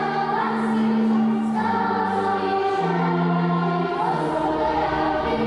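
Church choir singing slow, sustained chords, moving to a new chord about every second.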